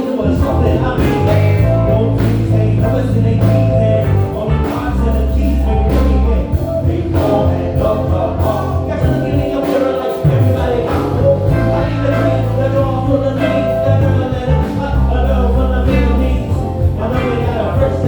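Live band playing: bass guitar holding long low notes, drums keeping time, with keyboards and a lead melody over the top.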